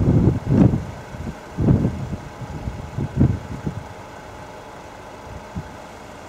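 Wind gusts buffeting the microphone in uneven low thumps, easing off after about four seconds into a steady low background.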